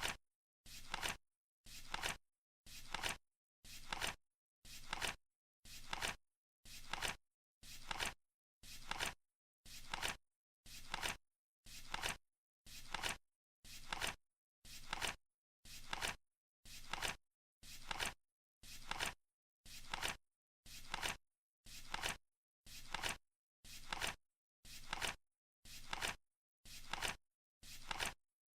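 Flip clock sound effect: one short flap-and-click about once a second, each a quick rustle ending in a sharper click, with dead silence between, as the countdown's seconds card flips.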